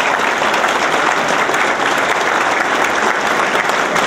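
Audience applauding: many people clapping at once, loud and steady throughout.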